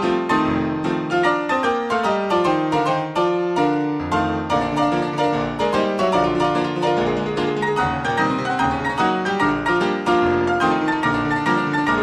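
Solo piano playing a brisk silent-film accompaniment: many quick notes over a bass line.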